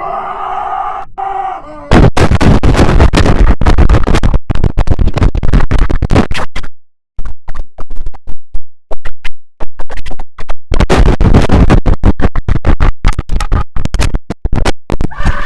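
The IBM OS/2 Warp 3 shutdown sound run through heavy audio effects. It opens with a brief pitched chime, then about two seconds in it turns extremely loud and distorted, chopped into rapid stutters much like record scratching, with a short cut to silence about seven seconds in.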